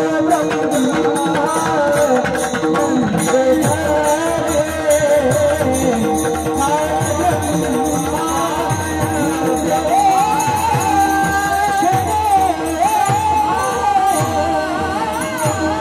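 Kirtan singing: a voice holding long, high, bending notes over a drum and small hand cymbals that keep a steady beat.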